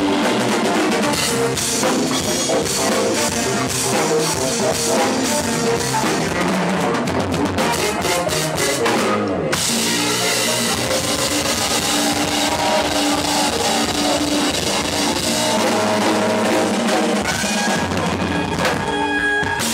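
Live band playing, heard from right beside the drum kit, so the drums and cymbals lead the mix over the rest of the band. The cymbals drop out for a moment about nine and a half seconds in, then the playing carries on.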